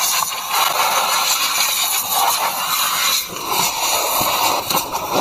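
Compressed air hissing from a handheld blow nozzle, swelling and easing, as dust is blown off a diesel engine's valve cover.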